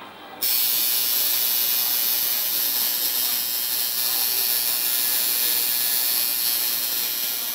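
Electric tattoo machine buzzing steadily as it inks the skin, switched on about half a second in.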